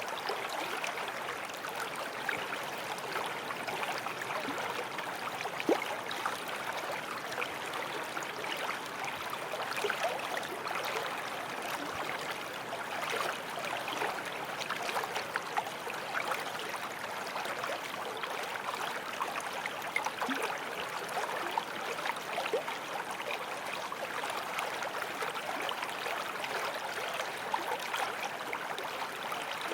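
Small forest stream flowing steadily over stones, with a continuous babble of small splashes and gurgles.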